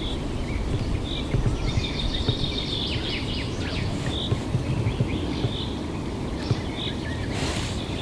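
Small birds chirping in short repeated calls, with a longer twittering phrase about two to three seconds in, over a steady low rumble of wind on the microphone.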